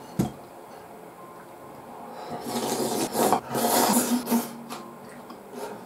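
A person slurping ramen noodles from a bowl held to the mouth: a run of loud, noisy slurps lasting about two seconds, starting a couple of seconds in. A single sharp click just after the start.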